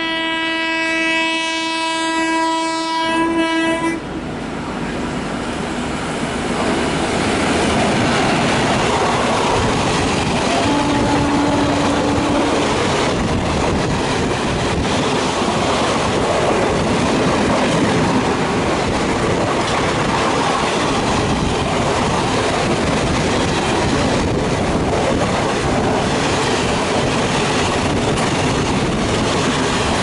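A WAP1 electric locomotive's horn sounds a long, steady blast that ends about four seconds in, followed by a second, short horn note about eleven seconds in. Meanwhile, express passenger coaches pass close at speed on the next track with a steady loud clatter and rumble of wheels over the rail joints.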